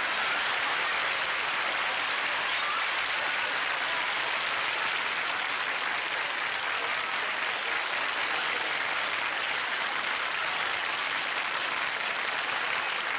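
Studio audience applauding steadily at a guest star's entrance.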